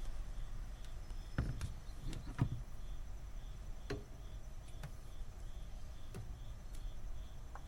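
Scattered light clicks and knocks of a wiper arm and blade being handled and fitted together, the loudest cluster a little over a second in. A faint high chirp repeats about twice a second underneath.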